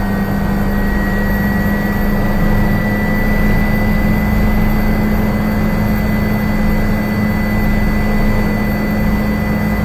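Helicopter turbine engine and rotor running, heard from inside the cabin: a loud, steady drone with a thin, high, steady whine over it.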